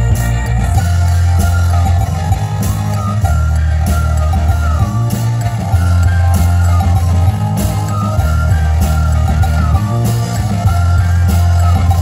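Synth-pop band playing live through a PA: a steady electric bass line and regular drum hits under a gliding lead melody, with accordion and synth in the band.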